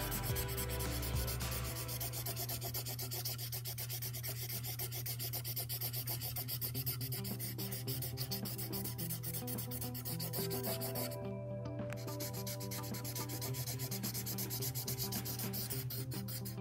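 A felt-tip marker scratching across paper in rapid short strokes as an area is coloured in, over a steady low hum.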